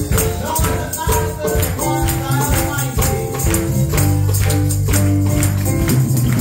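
Live praise-and-worship music from a church praise team, played with a steady beat and held notes.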